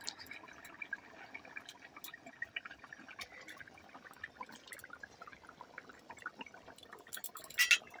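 Curry gravy bubbling at the boil in an iron kadai, with small pops and drips as fried fish pieces are slipped into it one by one. A short louder splash or scrape comes near the end.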